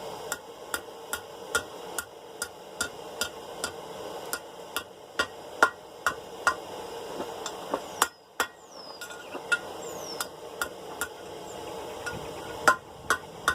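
Blacksmith's hand hammer striking a steel bar on an anvil in a steady rhythm, about two to three blows a second, each with a short metallic ring. There is a brief pause about eight seconds in, and a harder blow near the end.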